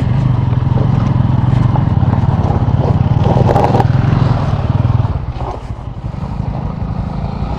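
Single-cylinder motorcycle engine pulling steadily in a low gear on a loose, rocky off-road climb. About five seconds in it eases off and gets quieter.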